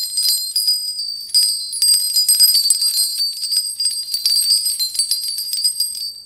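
Small bells on a Ganesh bell ornament jingling as it is shaken: a rapid, high-pitched tinkling of many strikes that stops near the end with a short ring-out.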